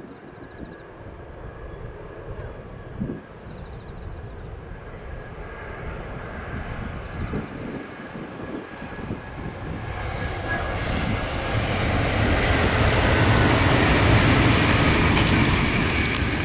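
JR Central 923 series Doctor Yellow Shinkansen inspection train approaching at high speed, its rolling noise on the rails growing steadily louder and peaking near the end as it passes close by.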